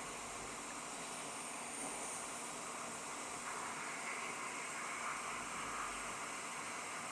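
A steady, even hiss with no distinct clicks or knocks.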